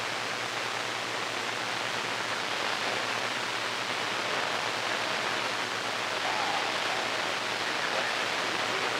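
CB radio receiver on channel 28 hissing with steady static on an open channel, with no station transmitting.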